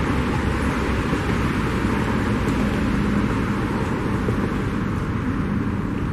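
EMD GR12W diesel locomotive hauling a loaded freight train, heard from a distance as it approaches: a steady rumble mixed with a rushing hiss.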